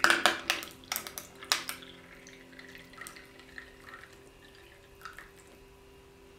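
Tea poured from a ceramic teapot into a glass cup packed with ice cubes. There is a quick run of sharp clinks and cracks from the ice in the first two seconds, then a quieter trickle of liquid with a few soft clinks as the cup fills.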